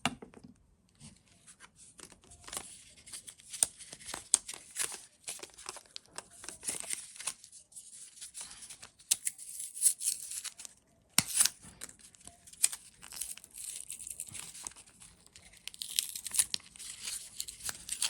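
Battery packaging being torn open and crinkled to free a 23A 12V battery: irregular crackling and tearing with sharp clicks, loudest around ten and eleven seconds in.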